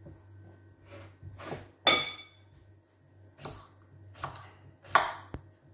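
Kitchen knife slicing a cucumber on a wooden cutting board: about six sharp chops at an uneven pace, the loudest about two seconds in with a short ring.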